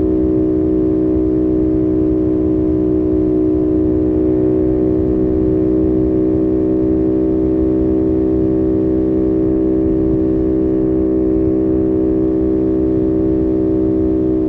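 2025 CFMOTO 450SS parallel-twin engine running at a steady cruising speed, its note holding one pitch, over a low rush of wind noise.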